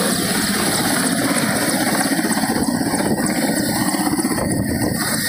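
Mi-17 military transport helicopters running, with a fast, steady rotor beat over turbine roar and a thin high whine. One is on the pad with its rotors turning and a second is coming in to land close by.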